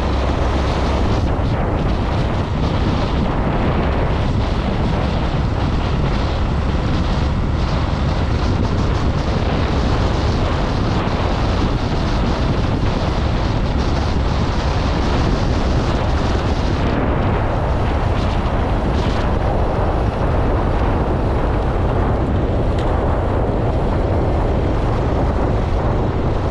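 Wind buffeting the microphone of a camera moving with road cyclists at speed: a steady, loud, low rumble of wind noise.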